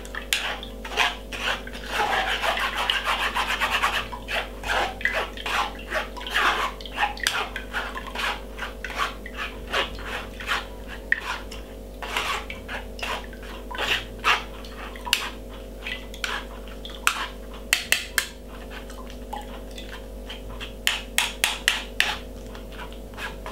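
A metal spoon scraping and pressing blended apple and ginger pulp against a fine wire-mesh strainer, in irregular strokes that are most continuous in the first few seconds and again near the end.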